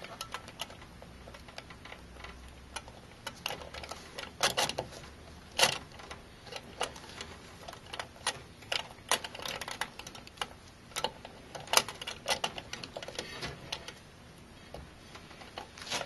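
Irregular small clicks and taps of plastic as gloved fingers work the plastic protective cover out of a motherboard's CPU socket, a few clicks louder than the rest.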